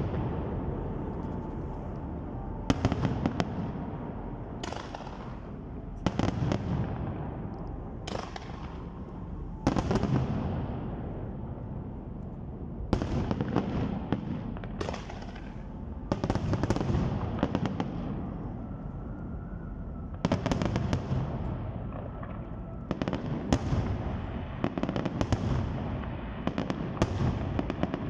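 Aerial firework shells bursting in a large display, one sharp bang every one to two seconds with a low noisy tail and crackling between them. The bursts come faster and denser in the last few seconds.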